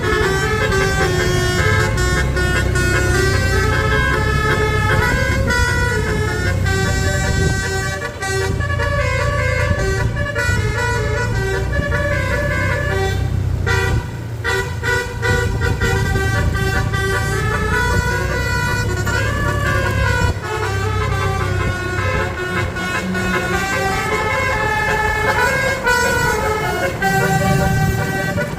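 Bus basuri (telolet) musical air horn playing a melody of quick stepped notes over the steady low rumble of the bus engine.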